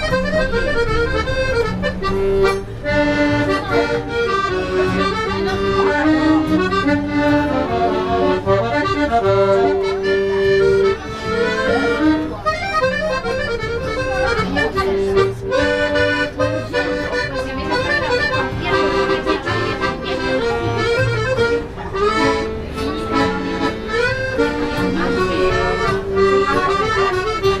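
Piano accordion playing a tune: a moving melody over repeated lower accompaniment notes, without a break.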